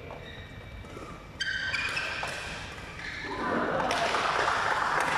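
Badminton play in a sports hall: racket hits on the shuttlecock and squeaking court shoes, then loud applause that starts about three seconds in and carries on.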